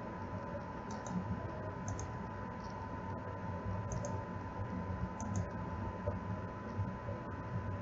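A few light, sharp clicks, mostly in quick pairs, about one, two, four and five seconds in, over a steady low hum and a thin steady tone.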